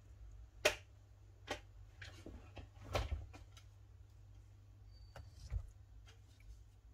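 Scattered light clicks and taps, about seven of them, from a plastic LED bulb and its corded lamp socket being handled, over a low steady hum. The loudest click comes about a second in.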